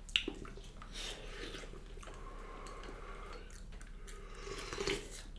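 Mukbang eating sounds: a person chewing food, with a few faint clicks, one at the start and one near the end.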